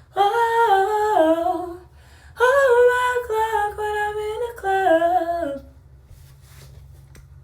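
A woman humming a melody without words, unaccompanied: two phrases, the second longer, with notes that step down in pitch. She stops about two seconds before the end.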